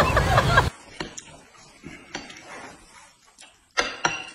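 Noodles being eaten with chopsticks: scattered small slurps, chewing and chopstick clicks, with one louder slurp near the end.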